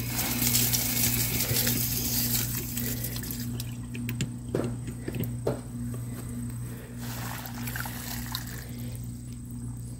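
Water running from a hose into a plastic bucket packed with comfrey leaves. The hiss of the flow is strongest for about the first three and a half seconds and weaker after, over a steady low hum.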